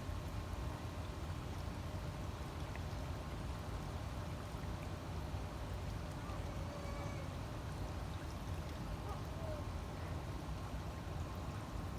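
Small stream flowing steadily, with a constant low rumble underneath.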